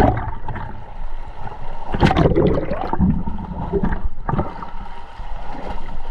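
Water sloshing and gurgling close to the camera, coming in irregular surges.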